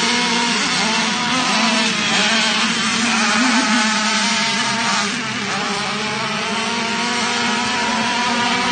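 Several radio-controlled racing boats running flat out around a pond, their small motors making a steady, high-revving buzz with the hiss of spray, easing off slightly about halfway through.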